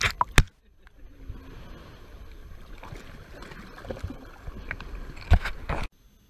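Seawater sloshing and splashing around a camera held at the waterline, with a few loud splashes or knocks near the start and again about five seconds in. The sound cuts off suddenly near the end.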